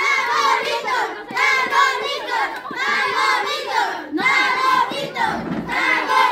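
A group of children shouting and cheering together, many high voices at once in surges about a second long, with a few light knocks of plastic cups being set down as they are stacked.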